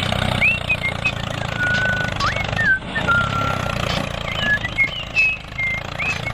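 Steady low motor hum from a mini model tractor driving on a dirt track, with short high chirps scattered over it.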